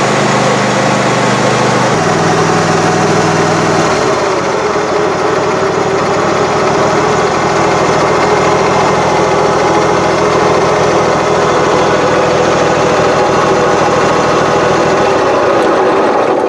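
Husqvarna riding lawn mower's engine running steadily. Its low note shifts about two seconds in and again about four seconds in.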